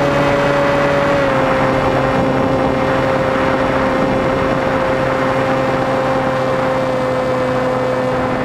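Scratch-built R/C airplane's motor and propeller heard from onboard, a steady droning whine at full power. Its pitch drops slightly about a second in and then holds, with air rushing past the wing-mounted microphone.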